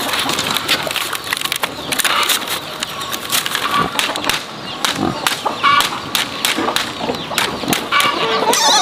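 Dry clicks and clatter of split bamboo strips being handled and pressed into a woven bamboo mat, with chickens clucking now and then.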